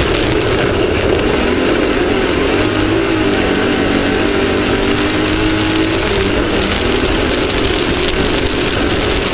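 Off-road race vehicle's engine running hard at speed, its pitch wavering up and down, under a loud, steady rushing noise of wind and terrain.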